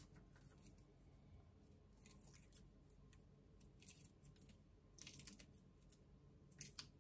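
Faint, scattered little crackles and clicks of eggshell being picked off a soft-boiled egg by hand, with near silence between them.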